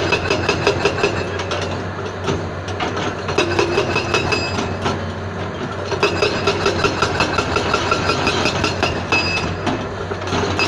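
SSI SB81 hydraulic rock breaker hammering rock with rapid, evenly spaced blows. The blows come in runs of a few seconds broken by short pauses, over a steady low drone.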